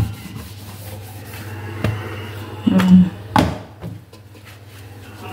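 Cloth rubbing and wiping over a kitchen surface, with a few knocks and bumps, loudest about three seconds in, over a steady low hum.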